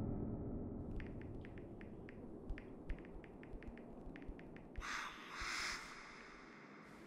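Horror-film sound design: the low rumble of a scare-music hit fading out, then a run of faint, irregular clicks for a few seconds, and a short hiss lasting under a second near the middle.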